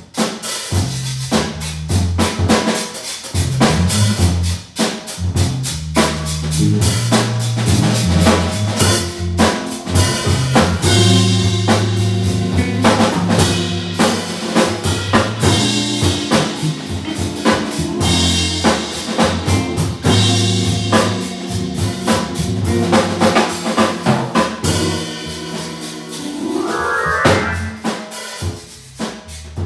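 Live blues from an organ trio: a drum kit played busily over a stepping organ bass line, with organ and electric guitar on top. A quick rising run climbs in pitch near the end.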